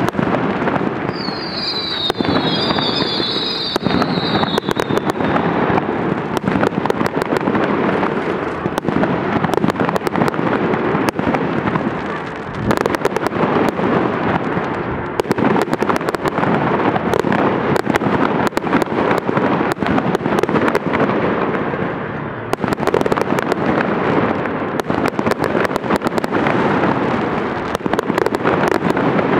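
Large fireworks display: a dense, continuous crackle of bursting shells over a steady rumble. A high wavering whistle sounds for a few seconds near the start.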